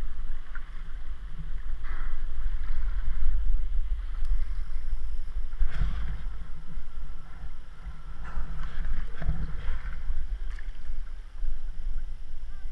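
Kayak paddle strokes swishing and splashing through choppy sea water every second or few, over a steady low rumble of wind on the action camera's microphone.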